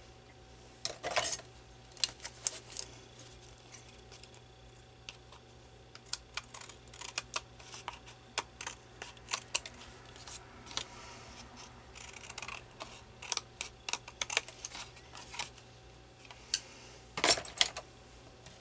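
Scissors snipping paper in many short cuts, with paper being handled; a louder rustle of paper about a second in and another near the end.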